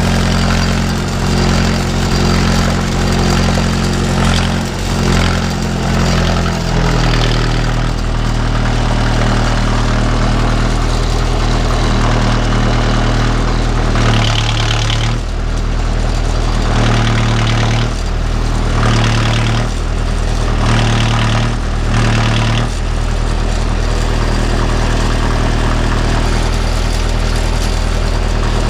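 A 45 hp utility tractor's diesel engine runs steadily while carrying a round hay bale on its front loader. The engine note shifts about a quarter of the way in. Later it surges briefly about six times in a row as the loader places the bale on the trailer.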